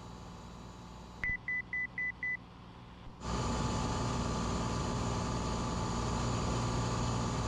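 Cabin noise of a Cessna 182 in flight: steady engine and propeller drone. About a second in the drone drops away and five short high electronic beeps sound, about four a second, then the engine drone returns, louder, and runs on steadily.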